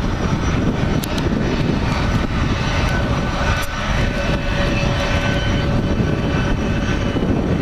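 Twin jet engines of an Airbus A320-family airliner at climb power just after takeoff: a steady jet noise with a faint steady whine over it.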